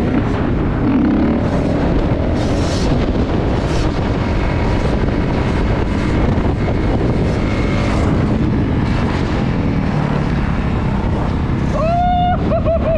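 Dirt bike running on the move, its engine buried in a dense, steady rush of wind noise on the microphone. Near the end a short wavering pitched tone cuts in.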